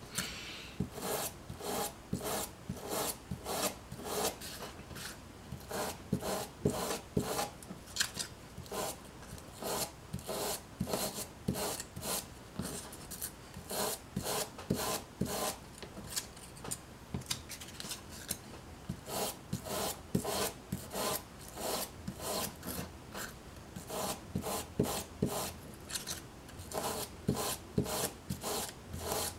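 Repeated rasping strokes of a hand tool dragged along a strip of pink craft foam, scoring deep wood-grain gouges into it. About two strokes a second, with a pause of a few seconds just past halfway.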